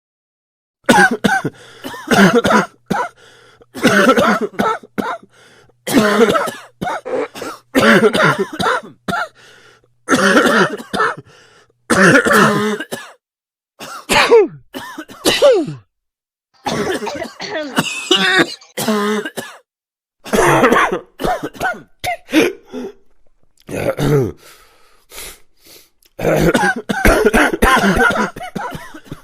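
A person sick with a cough coughing hard over and over in fits, with throat clearing. There are many short, loud coughs with brief pauses between the fits.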